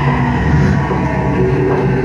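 Loud film soundtrack music over a cinema's sound system, with a heavy low rumble underneath held tones.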